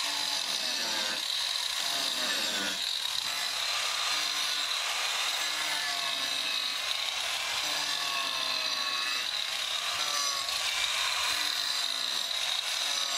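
Angle grinder running steadily with its spinning disc worked across carved, painted wood: a continuous high whine with a grinding rasp, its pitch wavering.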